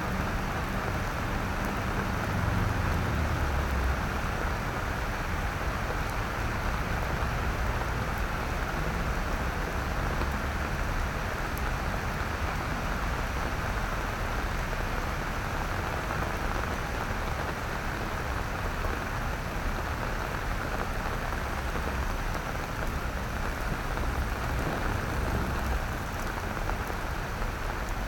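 Steady rain falling on wet paving, with a low rumble underneath.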